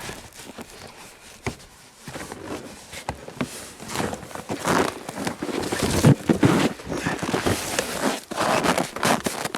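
Packaging rustling and crinkling with scattered clicks, knocks and scrapes as a new camping tent stove and its parts are taken out of the box. Sparse at first, the handling gets busier after about two seconds.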